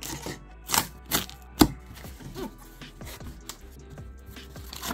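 Yellow box cutter slicing through packing tape on a cardboard box, then the cardboard flaps being pulled open: a run of sharp cutting and tearing snaps, the loudest about a second and a half in.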